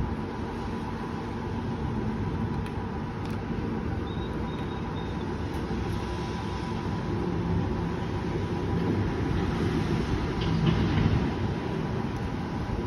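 Distant thunder rolling as a low, continuous rumble that swells about ten seconds in.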